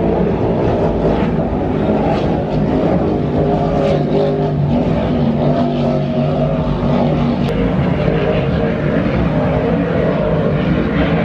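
Offshore racing powerboat engines running at speed: a loud, steady drone with several engine pitches overlapping.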